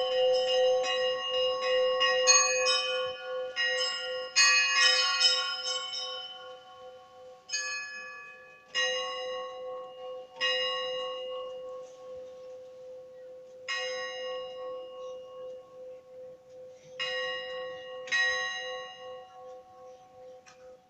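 Church bells ringing. For the first six seconds or so several bells are struck in a quick run over a steady lower hum. After that come single strikes every one to three seconds, each ringing on and fading, and the ringing dies away toward the end.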